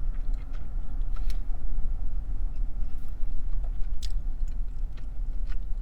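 Close-miked chewing of a blackened chicken sandwich, with scattered wet mouth clicks, over a steady low rumble inside the car.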